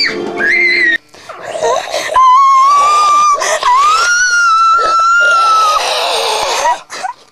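A person screaming in long, high-pitched wails. One scream is held from about two seconds in, breaks briefly, then rises and holds again until nearly six seconds in, with shorter cries around it.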